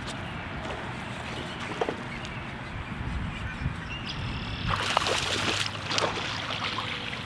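Hooked largemouth bass thrashing and splashing at the surface, with a burst of splashing about five seconds in.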